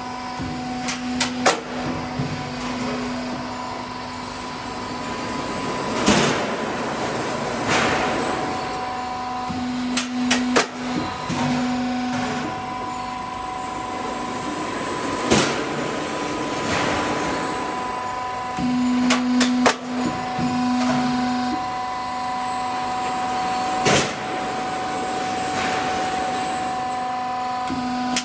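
Half-round gutter roll forming machine running, the metal strip feeding through its forming rollers. There is a steady mechanical noise with two constant high tones and a lower hum that comes and goes in stretches of a second or two, and sharp metallic clicks and knocks every few seconds.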